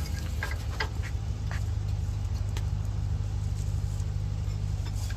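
A steady low mechanical hum, with a few light clicks and taps of tools on metal from work on a brake caliper.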